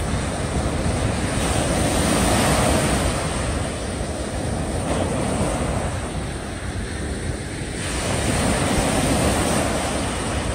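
Small waves breaking and washing up a sandy beach, the rush of surf swelling twice and easing in between, with wind on the microphone.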